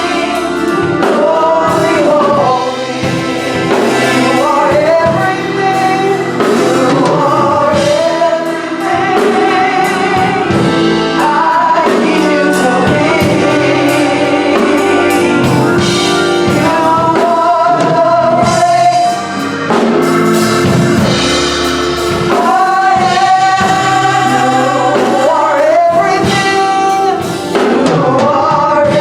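Gospel song with a group of singers over instruments and a drum kit.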